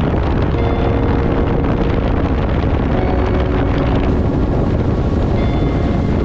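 Outboard motor of a center-console boat running at cruising speed, under heavy wind noise on the microphone from the boat's speed.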